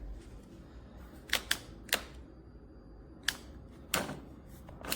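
Five sharp clicks: a close pair about a second and a half in, one near two seconds, then single clicks near three and a quarter and four seconds. They fit a control button or switch on an EGO cordless lawn mower being pressed again and again, with no response from what it controls.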